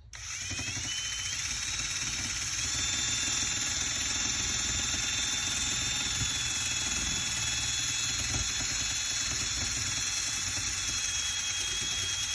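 Power drill fitted with a sanding pad, grinding paint off a vehicle's sheet-metal hood. It starts suddenly, its whine climbing in pitch over the first couple of seconds and then running steadily at high speed. The pad is getting worn down.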